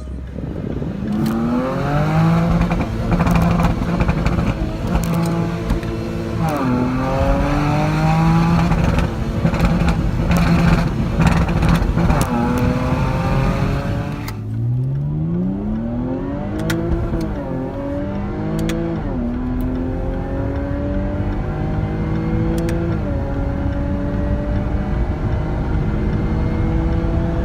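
Jaguar F-Pace's 3.0-litre supercharged V6 under hard acceleration through the gears: engine pitch climbs steadily and drops back at each upshift. About halfway through it falls to a low pitch and climbs again through several more shifts.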